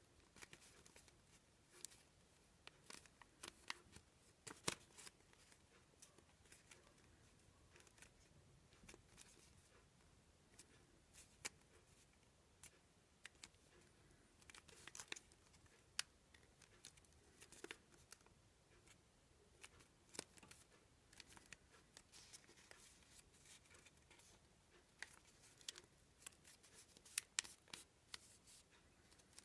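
Sheet of origami paper being folded and creased by hand: faint, irregular crinkles and short, sharp crackles as fingers press the folds, with a small cluster about halfway through and another near the end.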